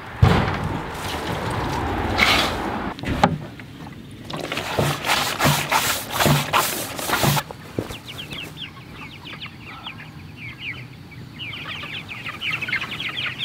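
Rustling and a run of sharp scrapes and clatters as animal feed is scooped from a bin into a pan. Then, from about eight seconds in, a flock of meat chickens calls with many quick, overlapping chirps that grow denser near the end.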